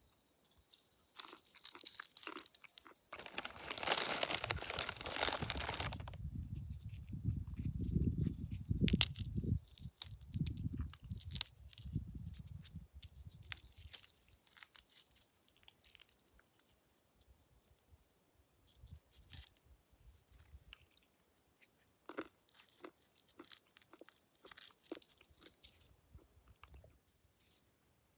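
Peanuts being cracked open and eaten: repeated crunches and sharp snaps of the shells, with a muffled rumbling rustle through the first half. Insects chirr steadily and high-pitched at the start and again near the end.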